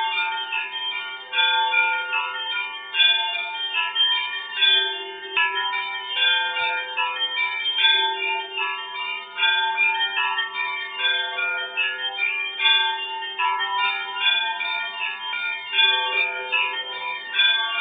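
Russian Orthodox church bells ringing: several small high bells struck rapidly in a repeating pattern over slower strokes of a deeper bell every few seconds.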